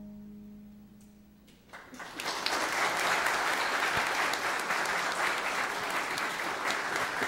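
The last held chord of a song dies away, and about two seconds in a church congregation breaks into applause that stays loud and steady.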